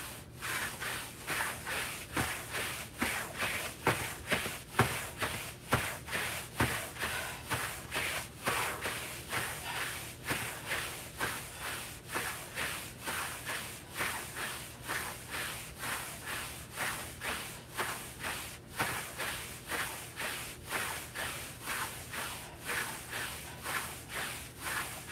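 Battle ropes swishing and slapping on the floor in a steady rhythm, about two strokes a second, during a rope-twist interval.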